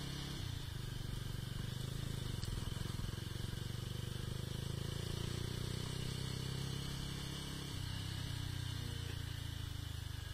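Mahindra Mojo motorcycle's single-cylinder engine running as the bike rides along a dirt track. The engine note steps down lower about eight seconds in.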